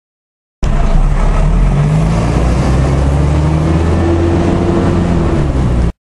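A motor vehicle engine running close by: a heavy, steady low rumble with a faint hum, which starts abruptly and cuts off just as abruptly.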